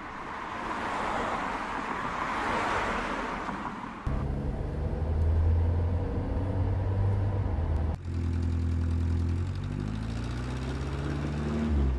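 Three short clips cut together: first a rush of hissing noise, then a heavy engine running steadily at a low pitch, then an engine rising in pitch as it speeds up.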